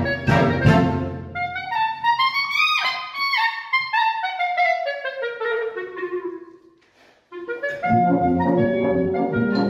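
Solo clarinet with concert band: a few accented band chords, then the clarinet alone runs up and winds slowly back down, fading out about seven seconds in before the full band comes back in loudly.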